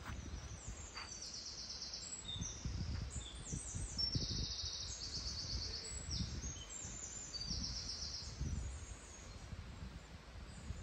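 Songbirds singing in woodland: a run of short, rapid, high-pitched trilled phrases, one after another, over a low, uneven rumble.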